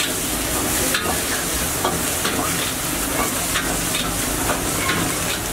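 Steady sizzling hiss of food frying on a hot flat griddle (tawa), with scattered light crackles.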